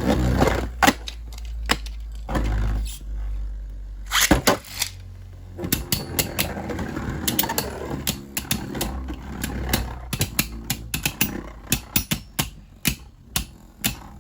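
Two Beyblade Burst spinning tops battling in a plastic stadium just after being launched: a steady spinning hum with frequent sharp clacks as the tops collide.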